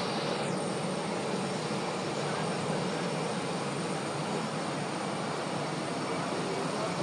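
Steady, even noise of jet airliner engines running on the airport apron.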